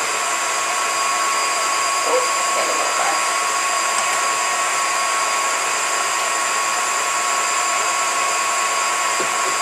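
KitchenAid stand mixer running at a steady speed, its motor whining over the hiss of the wire whisk whipping heavy cream that is almost at stiff peaks.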